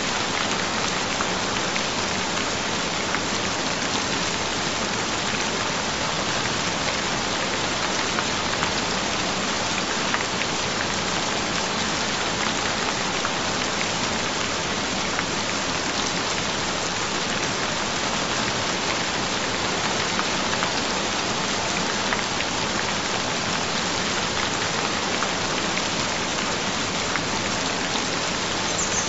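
Rain falling steadily, an even wash of many small drops that does not change.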